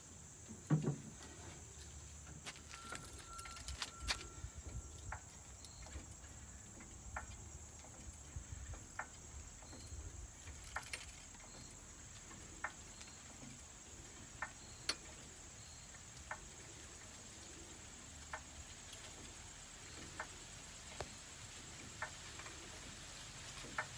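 Crickets or similar insects making a steady high-pitched drone, with faint irregular ticks and knocks about once a second and one louder knock about a second in.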